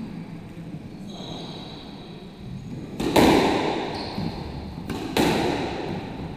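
Squash ball struck hard twice, about two seconds apart, each hit ringing out with a loud echo around the enclosed court.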